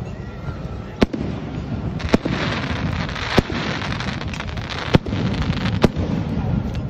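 Aerial fireworks going off: about five sharp bangs roughly a second apart, with a spell of crackling after the second bang and a low rumble underneath.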